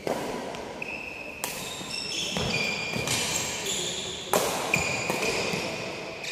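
Badminton doubles rally: sharp racket strikes on the shuttlecock every second or so, with sneakers squeaking on the wooden court floor and the thud of footsteps.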